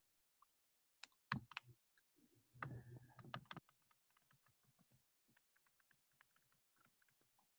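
Faint tapping and scratching of a stylus writing on a tablet screen: a run of quick clicks, louder in the first few seconds and fainter after.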